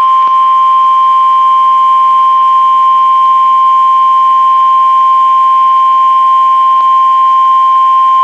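NOAA Weather Radio 1050 Hz warning alarm tone: one loud, steady, single-pitch tone that cuts off sharply at the end. It is the attention signal that comes before a broadcast of a watch or warning.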